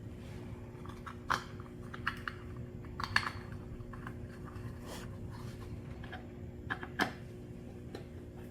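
A few scattered sharp clicks and clinks of tools and small parts being handled during reassembly of a small engine's ignition, over a steady hum.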